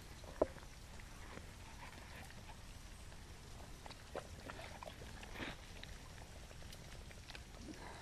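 Faint scattered taps and rustles of walking a woodland trail with dogs, with one sharper click about half a second in.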